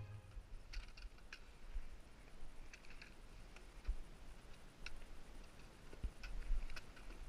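Faint, irregular clicks and taps of trekking-pole tips and boots on rock during a scramble, over a faint low rumble.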